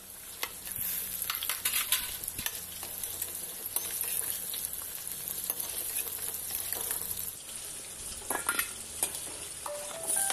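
Fried fish sizzling in hot oil in a metal wok, turned with a metal ladle that clinks and scrapes against the pan many times.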